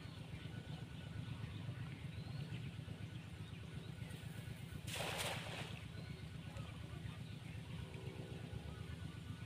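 A cast net splashing down onto shallow water once, a short splash about five seconds in, over a steady low rumble and faint bird chirps.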